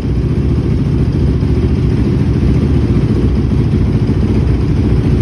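Honda TRX450R's single-cylinder four-stroke engine idling steadily after a tune-up with fresh valve clearances, new spark plug and rebuilt original carburetor.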